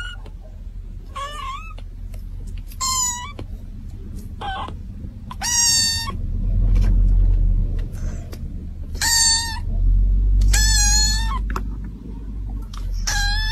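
A young kitten meowing again and again in thin, high-pitched cries, about seven in all, the later ones longer. A low rumble runs underneath.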